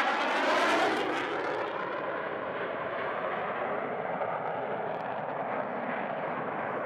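Belgian Air Force F-16 fighter jet's single turbofan engine running at high power as the jet flies its display overhead. Loudest in the first second or two, then a steady, slightly lower jet noise.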